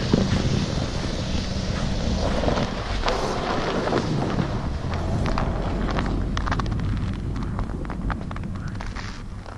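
Wind rushing over the microphone and tyre noise from a Honda Ridgeline driving over snow-covered lake ice. A run of sharp crackles comes in the second half as the tyres cross crusted snow. The sound eases off near the end.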